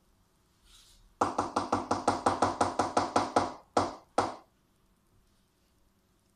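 A spoon knocking rapidly against a mixing bowl: about a dozen quick ringing taps in a steady rhythm over two seconds, then two more taps a little apart.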